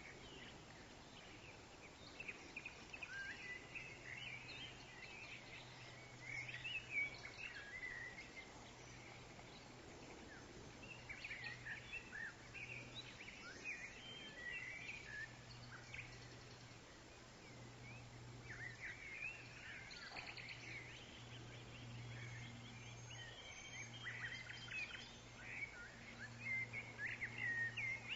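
Several woodland songbirds chirping and twittering in intermittent bursts, busiest in the second half. Beneath them run a faint even background hiss and a low steady hum.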